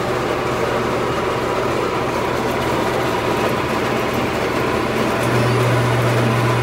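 Mold-A-Rama plastic-molding vending machine running as it molds a figure: a steady mechanical hum, with the low hum stepping up louder about five seconds in.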